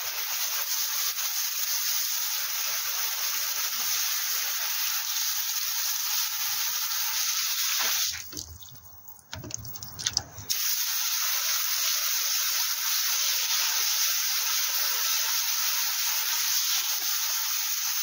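Garden-hose pistol spray nozzle jetting water onto a motorcycle's spoked wheel, a steady hiss. The spray stops for about two seconds around the middle, with a few clicks, then starts again.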